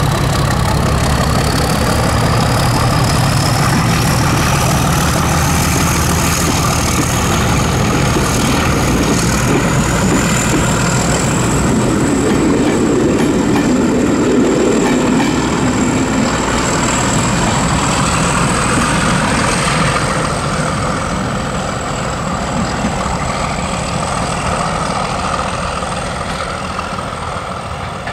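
Class 31 diesel-electric locomotive with its English Electric engine pulling away under power: a heavy engine note with a high whine that rises in pitch over the first ten seconds and then holds steady. The coaches roll past behind it, and the sound fades over the last several seconds as the train draws away.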